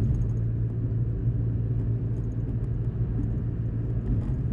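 A steady low rumble and hum, unchanging, with no speech.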